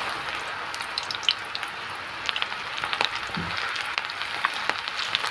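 Besan-coated okra strips, just added to hot oil in a kadhai, deep-frying: a steady sizzle with many sharp crackles and pops.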